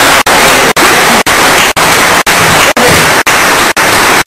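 Loud, even static hiss that cuts out briefly about twice a second, with a faint voice buried beneath it: a recording defect masking the speech.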